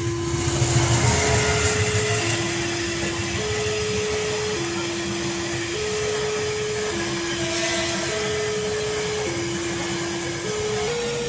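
A passenger train rushing and rumbling past a level crossing, loudest about a second in. Over it, the crossing's warning signal sounds two low tones by turns, each held about a second.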